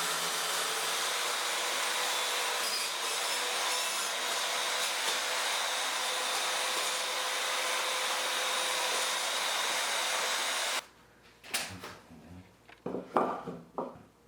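An electric power tool running steadily with a hissing whine, stopping abruptly about eleven seconds in, followed by a few scattered knocks.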